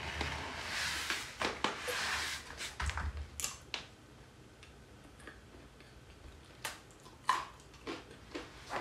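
Close-up chewing of boneless fried chicken pieces coated in sweet sauce: crisp crunching and wet mouth sounds for the first few seconds, then scattered soft clicks from the mouth and chopsticks.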